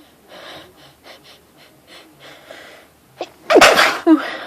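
A woman sneezes once, loudly, about three and a half seconds in, after soft build-up breaths and a sharp inhale. A short falling vocal sound follows it. A strong tickle in her nose set off the sneeze.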